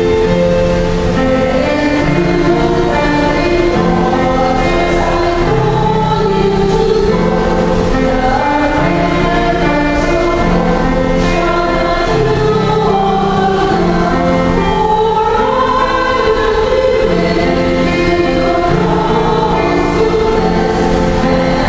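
Church choir singing a hymn in long held notes.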